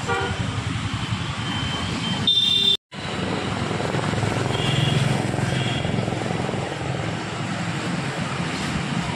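Steady rushing noise of a gas welding torch flame, heavy in the low end, as it welds the underside of a motorcycle. The sound drops out for a moment about three seconds in.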